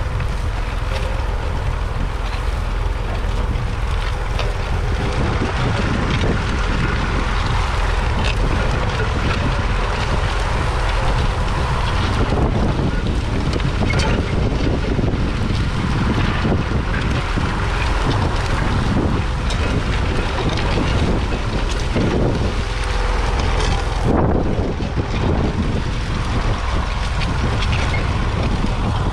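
Massey Ferguson 35X's 2.5-litre three-cylinder diesel engine running steadily while pulling a two-furrow plough through the ground, with wind buffeting the microphone throughout.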